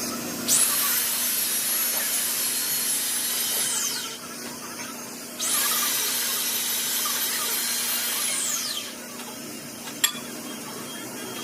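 Small high-speed power tool run twice, each run about three and a half seconds long: a high whine that winds up, holds steady, then winds down as the tool is switched off. A single sharp click near the end.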